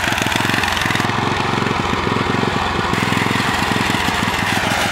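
Small riding-mower engine on a custom lawn-tractor drag racer running steadily at idle, an even rapid putter with no revving.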